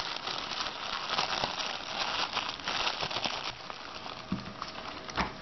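Clear plastic zip bag crinkling as it is handled and opened, for about three and a half seconds. Then it goes quieter, with a couple of soft knocks as the suction-cup camera mount is handled.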